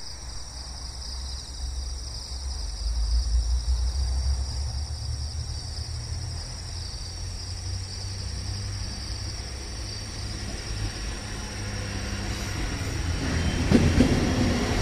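Type 1500 diesel railcar approaching and reaching a level crossing, its engine rumble building, with wheels clattering over the rails about a second before the end. A level-crossing warning bell rings steadily with an even pulse.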